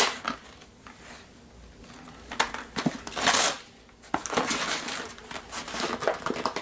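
A mailing package being opened and handled: crinkling and rustling of the packaging in a string of short bursts, the longest and loudest about halfway through.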